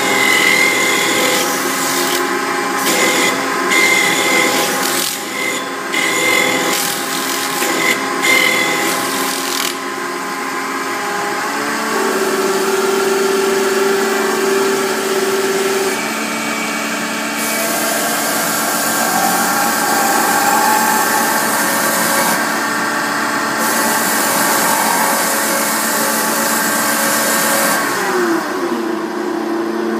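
CNC metal spinning lathe running, its forming roller pressing and rubbing on sheet metal spinning on the mandrel: a steady ringing whine of several tones over a scraping hiss that comes and goes in the first third. Near the end several of the tones drop in pitch.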